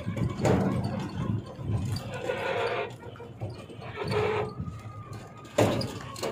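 Auto-rickshaw ride on a rough country road: an uneven low rumble and rattling of the vehicle's body, with a sharp knock from a jolt near the end.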